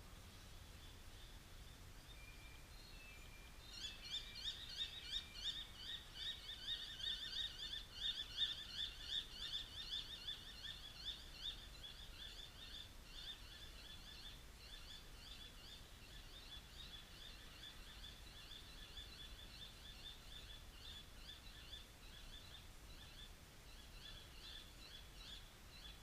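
A bird chirping in a fast, steady run of short notes that starts a few seconds in, is loudest early on and then fades away near the end.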